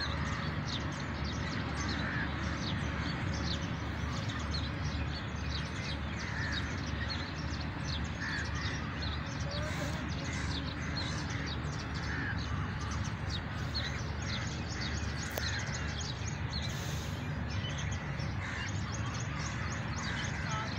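A dense chorus of birds calling and chirping, with caw-like calls about every two seconds, over a steady low rumble.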